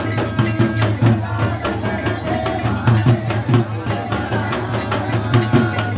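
Traditional ritual dance music: fast, dense drum strokes with held high tones over them, and crowd voices underneath.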